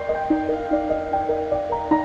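Background music: a melody of short pitched notes, several a second.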